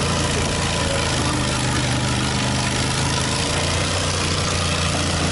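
Modified lawn tractor engine running with a steady low drone.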